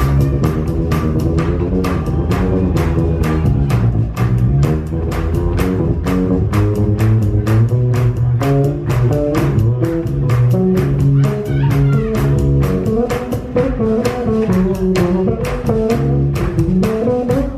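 Live rock band playing an instrumental passage: guitar and bass guitar over drums keeping a steady beat of about four strikes a second.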